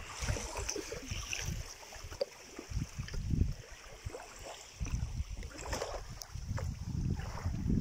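Wind gusting on the microphone in uneven low rumbles, over a faint hiss of wind and rippling lake water.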